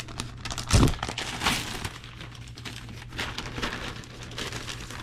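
Plastic packaging crinkling and rustling as a package holding a replacement antenna boot is opened by hand, with one short bump a little under a second in.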